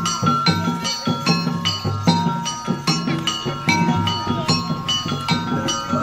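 Traditional Banjar music for the Tuping Burung mask dance: ringing mallet-struck percussion over low drum strokes in a steady, quick rhythm.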